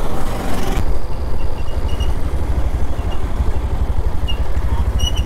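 Motorcycle running at road speed, a steady engine and wind rumble on the camera microphone, with a few faint short high chirps.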